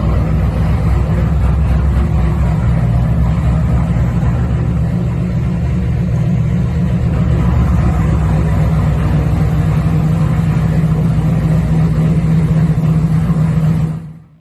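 Supercharged 4.6 V8 of a 2008 Bullitt Mustang, fitted with a Roush 2.3 TVS blower, running at a steady speed with a deep, even rumble. It cuts off suddenly near the end.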